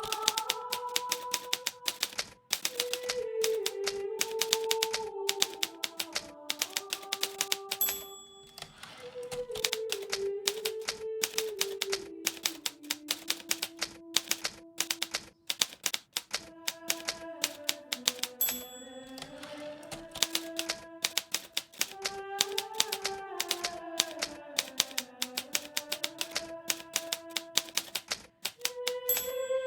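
Rapid keystrokes clacking on a Hermes Baby portable manual typewriter, with a few short pauses in the typing. Soft background music plays underneath, a slow melody moving in falling phrases.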